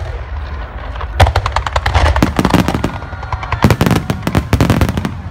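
Aerial fireworks bursting in a rapid barrage: a dense run of sharp crackling reports over a low rumble, starting about a second in and growing thicker past the middle.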